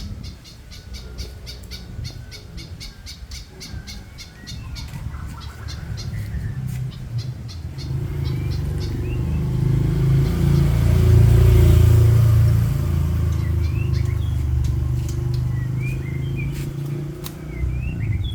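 Songbird chirping rapidly in short repeated high notes; from about eight seconds in, a passing vehicle's engine rumble swells up, loudest a little past the middle, and fades, with short rising bird chirps over it near the end.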